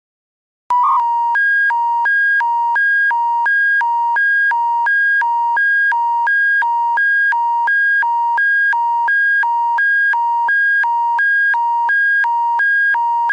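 Alberta Emergency Public Warning System attention signal: a loud electronic alarm tone switching back and forth between a lower and a higher pitch, about three changes a second. It starts less than a second in.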